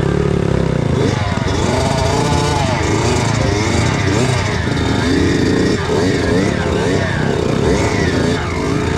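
Kawasaki KX85 two-stroke motocross engine revving up and down without pause, its pitch rising and falling as the throttle is worked through mud.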